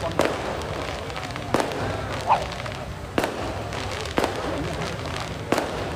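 Firecrackers going off in separate sharp bangs, about six in a few seconds, unevenly spaced.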